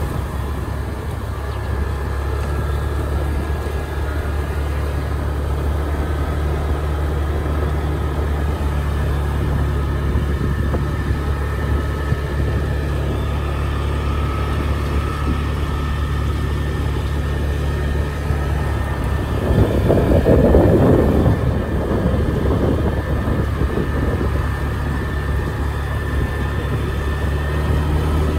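Motor vehicle engine running steadily with a low hum, along with road noise. A louder swell of noise comes about twenty seconds in.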